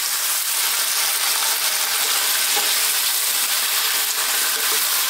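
Spinach and potato curry sizzling steadily in a nonstick frying pan, with a splash of water just added, while a spatula stirs it.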